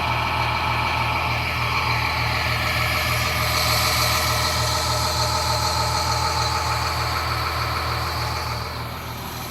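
Cummins ISC diesel engine of a school bus idling with a steady low pulsing hum. A louder rushing noise with higher tones swells over it and fades out shortly before the end.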